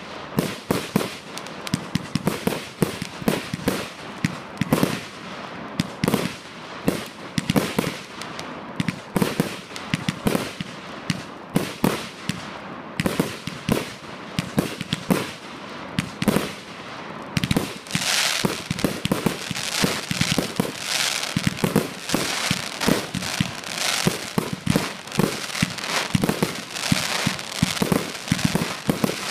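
Fireworks display: rapid, overlapping launches and bursts of aerial shells going off in quick succession. From a little past halfway, a steady hiss joins the bangs.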